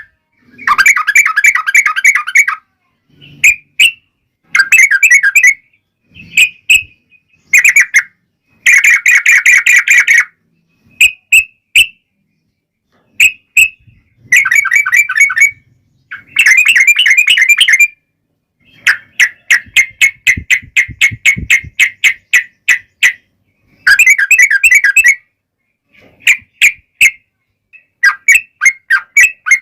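Yellow-vented bulbul (trucukan) giving rapid chattering call phrases, the agitated fighting calls used to provoke other bulbuls to answer. They come in repeated bursts of a second or two with short gaps, and one longer run of quick, evenly spaced notes past the middle.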